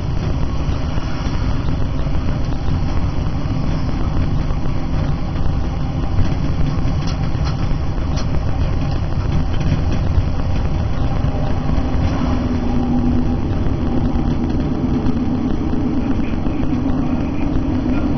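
Diesel multiple-unit train heard from the driver's cab, running along the line with a steady rumble of engine and wheels on rail. A humming note grows stronger from about twelve seconds in, and a few brief clicks come about halfway through.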